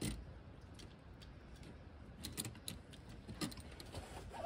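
Steel pliers clicking and clinking against copper ground wire and the brass clamp on a copper ground rod as the wire is bent into shape: a few short, sharp metallic clicks.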